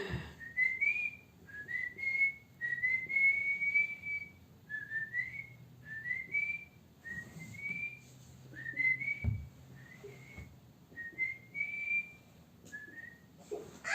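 A person whistling a long run of short, mostly rising notes, with one longer held note near the start.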